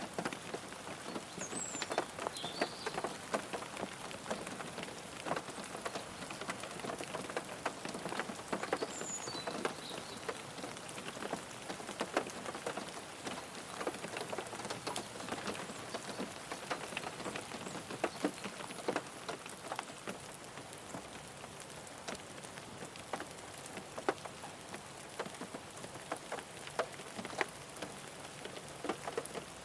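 Rain falling on a car: a steady patter with many sharp individual drop hits scattered throughout.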